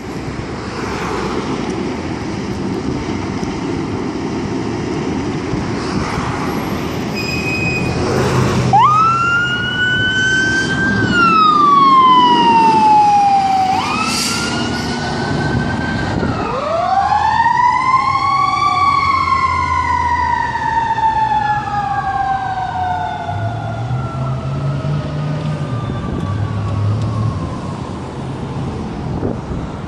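Fire engine pulling out on an emergency run. After several seconds of diesel engine rumble, its mechanical siren winds up sharply three times, each time coasting down in a long falling wail, and the sound fades toward the end.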